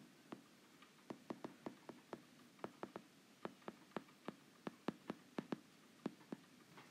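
Stylus tip tapping against a tablet screen while words are handwritten: about twenty faint, sharp clicks at an uneven pace.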